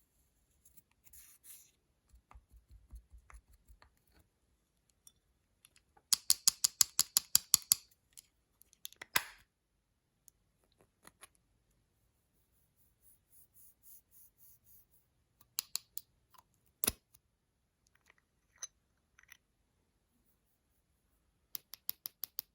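Slime being worked by hand, giving fast runs of sharp clicks and pops, with single loud pops and faint soft squishing between them.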